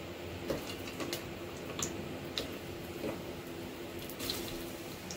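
Shallots starting to fry in a shallow layer of oil, giving faint, scattered crackles and pops every half second or so.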